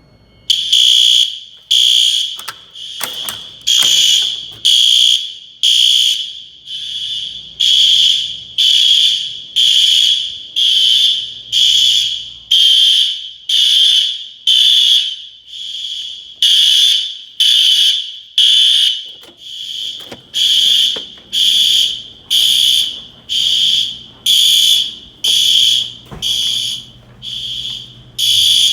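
Fire alarm going off during a test: a loud, high-pitched tone pulsing steadily at about one beat a second, starting suddenly about half a second in.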